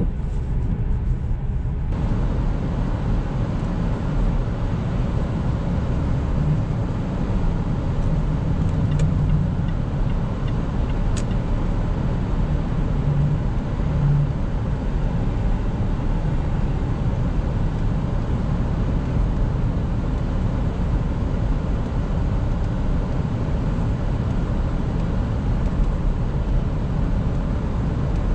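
Jaguar XF 2.7 V6 diesel driving, a steady drone of engine and tyre-and-road noise that is strongest in the low end.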